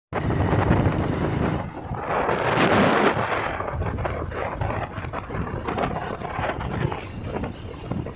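Wind buffeting the microphone: a loud, uneven rumbling roar that swells about two to three seconds in.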